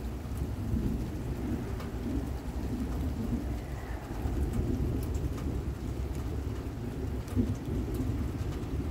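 Thunderstorm: rain falling, with a low, rolling rumble of thunder throughout and scattered close drop ticks.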